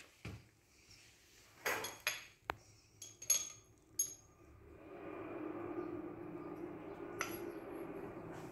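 Sharp metallic clinks and taps of engine valves being handled and set into a MAN truck's cast cylinder head, several in quick succession in the first half. About halfway through, a steady droning noise builds up in the background and carries on.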